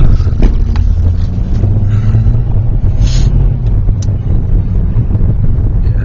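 Steady low rumble of a moving car, with wind buffeting the microphone. A short hiss comes about three seconds in.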